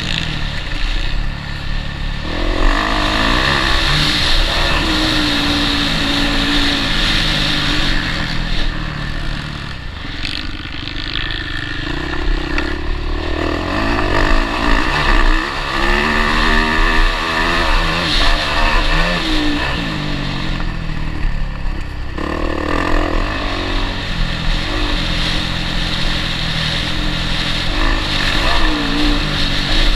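Motocross bike engine revving hard, its pitch climbing and dropping again and again as the rider works the throttle and shifts gears, heard close up from the bike itself.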